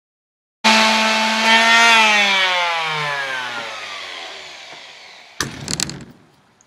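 Electric palm sander running at full speed; about a second and a half in it is switched off, and its motor whine falls steadily in pitch and fades as it winds down. A short clatter near the end as the sander is set down on the board.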